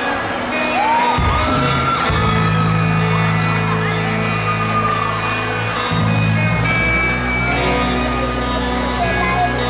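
Live rock band playing, with electric guitars, bass guitar and drums through stage amplifiers. The low bass notes come in about a second in.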